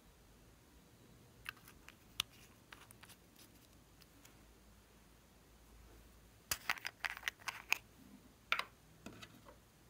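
Small, sharp plastic clicks and taps from cosmetic containers being handled: a few scattered clicks early on, then a quick run of clicks a little past halfway and a couple more near the end.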